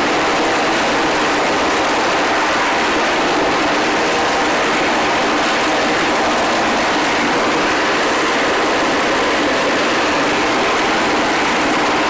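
MH-60 Seahawk helicopter's twin turboshaft engines and main rotor running, a steady, loud rushing noise that does not change.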